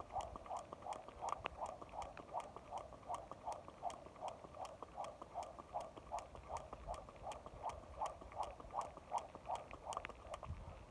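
Jump rope swishing round at about three turns a second, a steady rhythmic whirr with sharp ticks of the rope striking the pavement.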